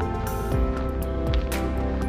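Background music: held instrumental notes over a soft, steady beat.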